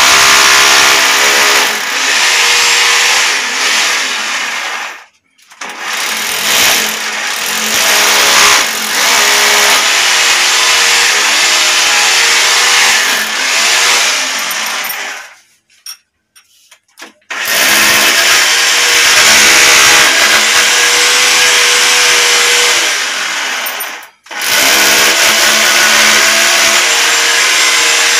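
Electric hammer drill boring into a ceramic-tiled wall, running in long bursts. It stops briefly about five seconds in, for about two seconds just past the middle, and briefly again near the end.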